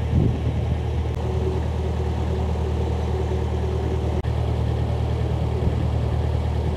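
Narrowboat engine running steadily under way, a constant low drone with a brief dip about four seconds in.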